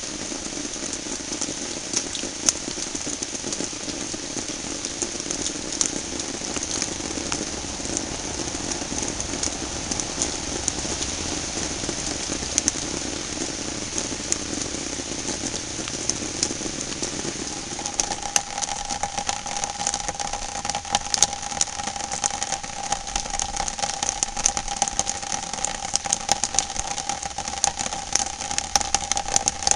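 Rain pattering and splashing on a green translucent plastic panel, a thick hiss full of sharp drop hits. Under it runs a low hum, and a little over halfway through a steady higher-pitched mechanical drone, like an idling engine, takes over and continues.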